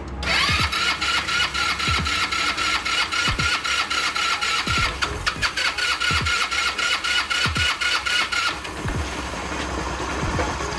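Scooter engine started and running with the CVT transmission cover off, giving a steady whine with rapid, regular ticking from the exposed belt drive. The whine drops away about eight and a half seconds in and a quieter running sound goes on. This is the abnormal transmission noise that the mechanic traces to inside the clutch.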